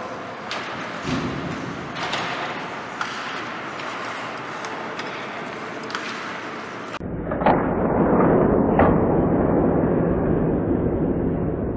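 Ice hockey game on the rink: sharp clacks of sticks and puck over a steady scrape of skates. About seven seconds in the sound abruptly turns louder and duller, with two more knocks shortly after.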